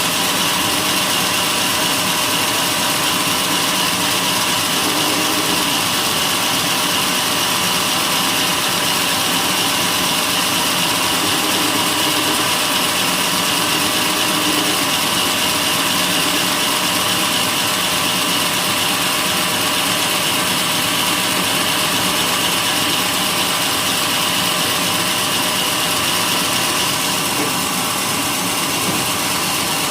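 Sawmill blade cutting steadily through a white-teak (Tectona grandis) beam, a constant loud sawing noise over the running motor, easing slightly near the end.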